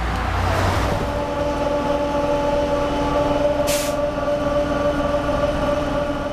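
Inside a city bus: a steady mechanical whine from the bus, with a short burst of air hiss about three and a half seconds in. The noise of a passing road vehicle fades out in the first second.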